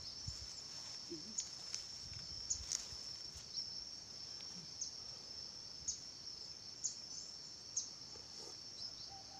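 Insects droning in the surrounding forest: a steady high-pitched buzz, with short sharp chirps over it about once a second.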